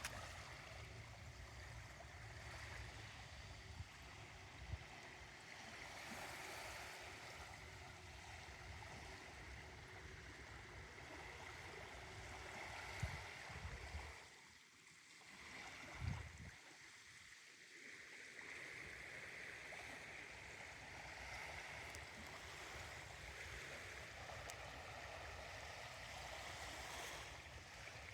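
Faint, steady outdoor ambience: wind rumbling on the microphone over a constant wash of noise, with a few light clicks. The wind drops away briefly about halfway through.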